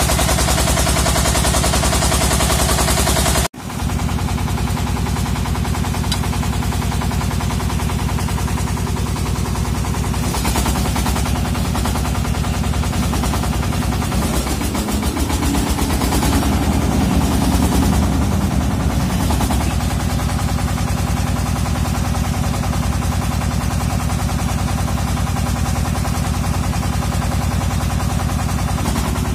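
Engine of a water-well drilling rig running steadily with a rapid, even pulse. It cuts out for an instant about three seconds in, then carries on, swelling a little in the middle.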